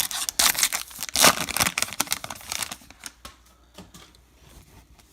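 Foil wrapper of a trading-card pack being torn open and crinkled, busy and crackly for about three seconds, then dying down to a few faint rustles and clicks.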